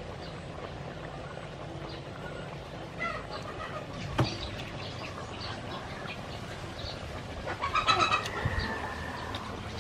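Steady outdoor background with scattered bird calls, and a short burst of louder calls about eight seconds in. A single sharp click about four seconds in.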